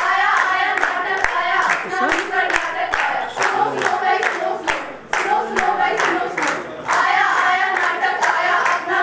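A group of women singing together while clapping their hands in a steady rhythm, about three claps a second, with a brief pause about five seconds in.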